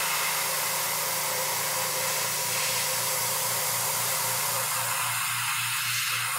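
Airbrush spraying thinned color-shift paint onto a lure: a steady hiss of air, with a low hum underneath that pulses about four times a second.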